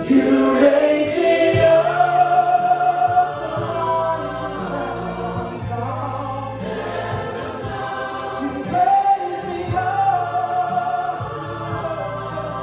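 Live stage music: choir-like singing voices holding long, gliding notes over sustained low accompaniment, entering loudly right at the start.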